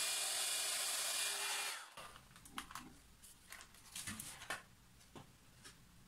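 Hair dryer on its cold setting blowing air, a steady rush with a faint whine, that cuts off just under two seconds in; a few light clicks and taps follow.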